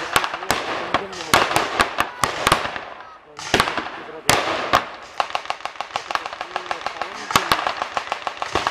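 Reenactment gunfire with blanks. Scattered single shots come first, then, from about five seconds in, a fast steady string of heavy machine-gun fire at around ten shots a second, typical of a water-cooled Maxim gun.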